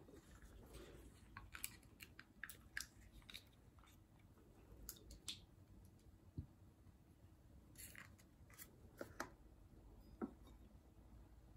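Faint, scattered clicks and crinkles of small portion cups of coffee creamer being peeled open and poured into coffee cups, over near silence.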